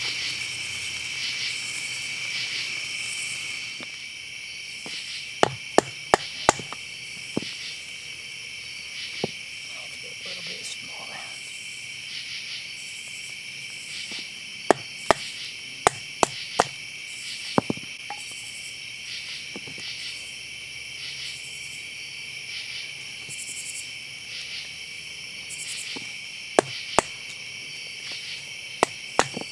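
Sharp wooden knocks in small clusters of three to five: a stick used as a baton striking the spine of a knife to split a piece of wood. Underneath, insects chirp steadily in a high, pulsing drone.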